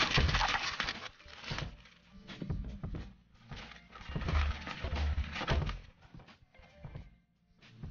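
Hands opening packaging and handling a manga volume: irregular rustling, tapping and soft thuds of paper and book, with short pauses.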